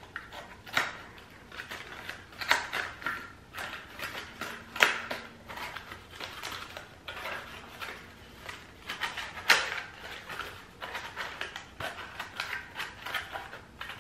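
Cardboard divider pieces of an ornament organizer being handled and slid into each other's grooves: irregular scraping and rustling with several sharp clicks, the loudest about five and nine and a half seconds in.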